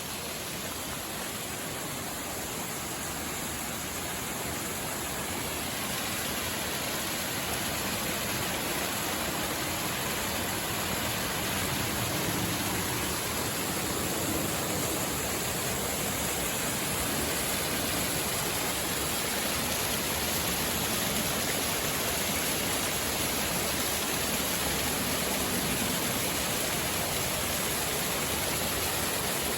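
Steady rush of mountain water from a stream and waterfall, growing gradually louder.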